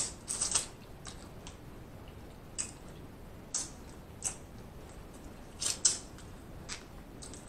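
Close-miked eating of snow crab legs: a scattered run of short, sharp, wet clicks and crackles from mouth and shell, about ten in all, the loudest at the very start and about six seconds in.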